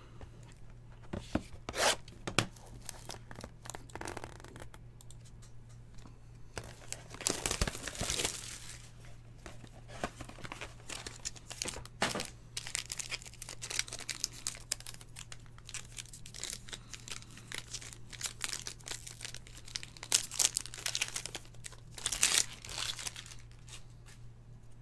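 Plastic wrapper of a Topps Tier One baseball card pack being torn open and crinkled in the hands, with cards slid and handled. Crackling and sharp clicks come in clusters, the busiest about two seconds in, around seven to eight seconds in, and again near the end.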